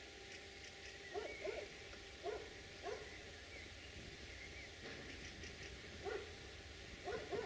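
A dog barking faintly in short, irregularly spaced barks, some in quick pairs, with faint birdsong behind.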